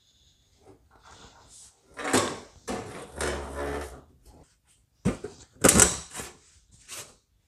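Sheet-metal clanks and scrapes as 18 gauge cold-rolled steel is worked on a bench-mounted hand-lever plate shear: several separate bursts, with sharp knocks about five and six seconds in.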